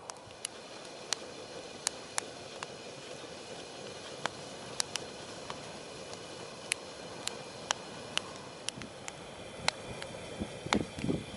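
Wood campfire crackling: sharp, scattered pops about once a second over a steady hiss. A few low thumps come in near the end.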